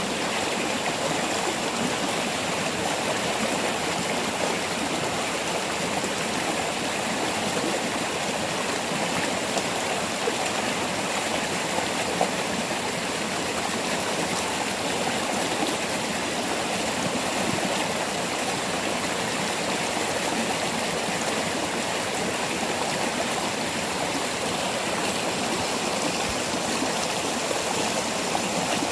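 Waterfall: water pouring and splashing over rocks in a steady, unbroken rush.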